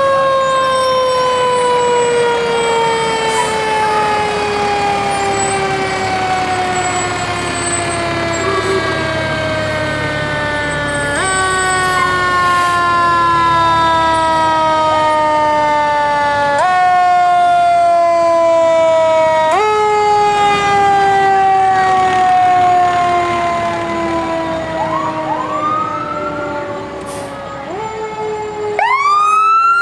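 Fire truck siren wailing with a slowly falling pitch. Three times the pitch jumps back up and falls off again. Near the end a second siren starts, sweeping up quickly.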